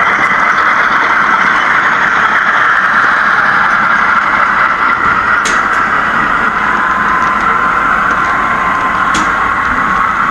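HO scale model freight train rolling past close by: a steady rushing clatter of small metal wheels on the track, with a few sharp clicks as the cars pass over rail joints. A thin, steady squeal comes in about halfway through.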